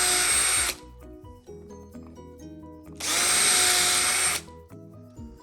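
Handheld power tool run twice in short bursts, each about a second and a half, cutting out the timber door frame to recess the strike plate. Background music plays throughout.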